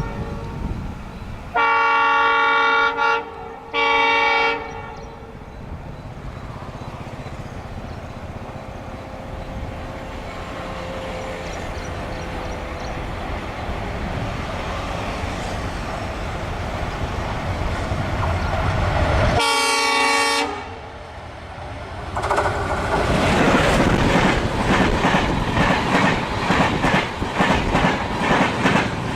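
ALCo WDG-3A diesel locomotive sounding short horn blasts near the start, then its engine running ever louder as it approaches under power, with another horn blast about two-thirds of the way in. Then the train passes with a loud, rapid clickety-clack of wheels over rail joints.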